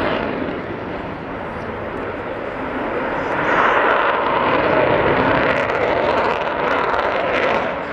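Jet noise from a Eurofighter Typhoon's twin Eurojet EJ200 turbofans during a slow-speed display pass: a loud, steady rush that dips slightly about a second in, then swells louder from about three and a half seconds in.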